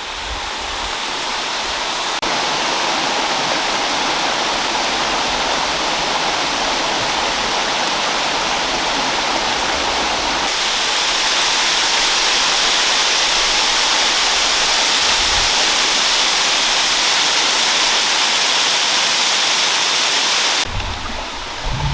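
Waterfall pouring: a steady, full rushing of water that grows louder and brighter about halfway through and drops back shortly before the end. The falls are running lower than usual because of a drought.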